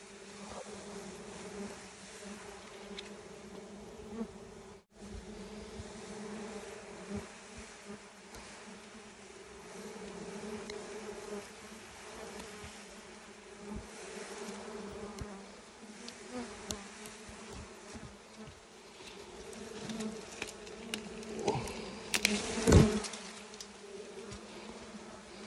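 A colony of honeybees buzzing steadily around their open comb, a continuous low hum. Near the end come a few sharp knocks and rustles, the loudest a short thump, as the comb and branch are handled.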